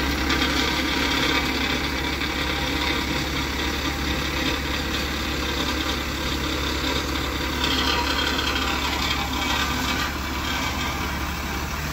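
Flatbed tow truck's engine running steadily under load, powering the winch as it drags a damaged pickup backwards up the tilted deck.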